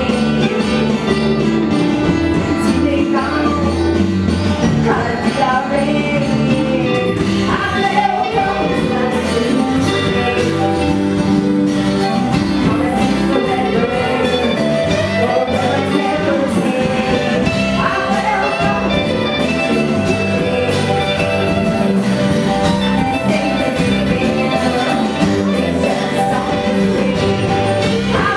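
Live rock band playing a song: a woman sings lead over electric and acoustic guitars and drums, loud and continuous.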